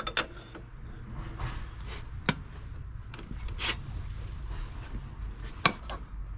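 A few sharp knocks and clunks, about four spread over six seconds, of metal motorcycle parts being handled and fitted: the wheel and new brake plate going into place.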